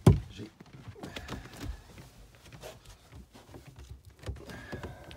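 A single loud thump right at the start, then light scattered knocks and rustling as a heavy rubber-backed boat floor mat is handled.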